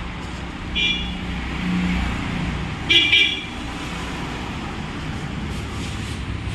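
Road traffic running steadily, with two short vehicle horn honks, a brief one about a second in and a louder one about three seconds in.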